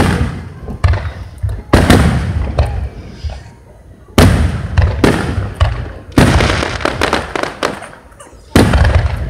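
Aerial firework shells bursting overhead: a run of about seven loud booms, each trailing off into crackle and echo, with short quieter gaps between them.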